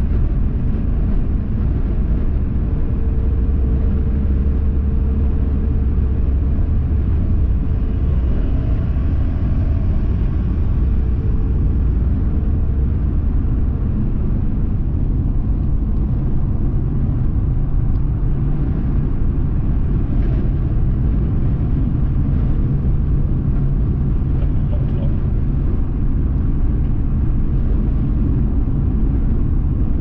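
Car driving along a road: a steady low rumble of engine and tyre noise, with a faint hum over it.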